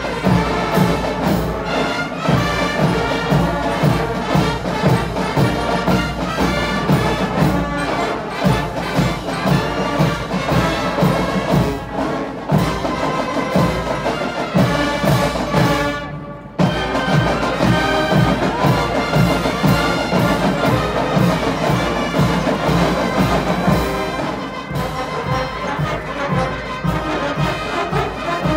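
Student marching band playing live: brass with drums striking a steady beat. About sixteen seconds in the band cuts off for a moment, then comes back in together.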